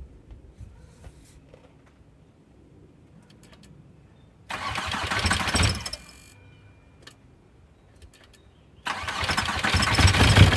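Rebuilt VW Passat four-cylinder diesel cranked on the starter twice, each attempt lasting about a second and a half to two seconds, trying to catch but not running on its own. Its injector lines are still being bled of air, so it is not yet firing on all four cylinders.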